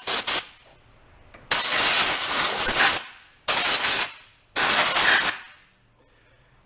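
Compressed-air blow gun blasting dirt and debris out of a lawn mower engine's carburetor area. It comes in four bursts of hiss: a short one at the start, then one about a second and a half long, and two shorter ones about a second apart.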